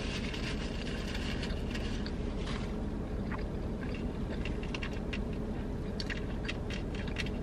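Close-miked chewing of fried chicken: scattered wet mouth clicks and smacks, more frequent in the second half, over a steady low hum.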